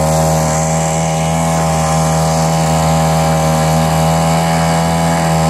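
Small outboard motor, which the title names the Aqua Bug, running at a steady speed and pushing a scanoe along, heard from aboard the boat. A loud, even engine drone that holds one pitch throughout.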